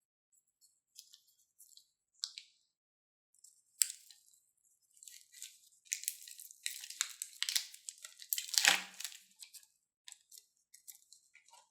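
Irregular crinkling and crunching of crunchy slime being worked and squeezed from plastic piping bags. The crackles are sparse at first, build to a dense run of crunching, loudest about eight and a half seconds in, then thin out.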